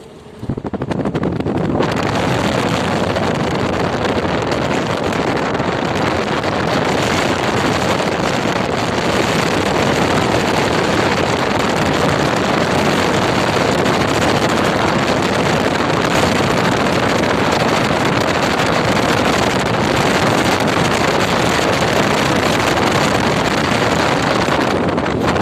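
Strong wind rushing over the microphone: a loud, steady roar that starts suddenly about half a second in and keeps up without a break.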